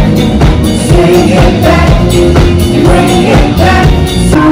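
Live band playing through a large stage PA: a woman singing lead with backing singers over a steady drum beat.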